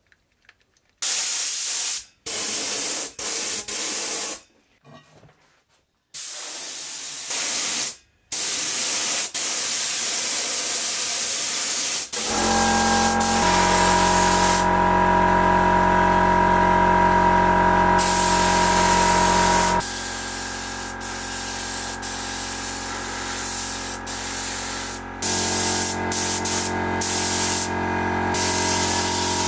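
Paint spray gun hissing in short bursts as the trigger is pulled and released, then spraying continuously for long stretches while paint goes onto the oil lamp's parts. A steady hum of several tones runs under the continuous spraying.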